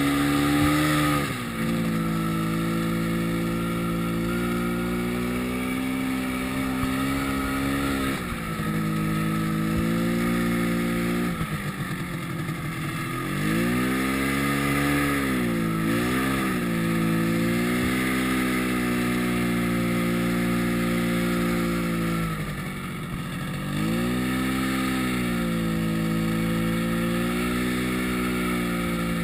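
Yamaha snowmobile engine running under throttle at a mostly steady pitch. Several times the pitch falls and climbs back as the throttle is eased and reopened: about a second in, twice in the middle and again near the end.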